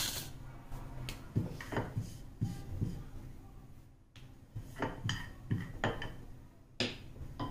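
Wooden rolling pin rolling and knocking on a round stone rolling board as small oiled puris are rolled out: a scatter of irregular taps and light thuds.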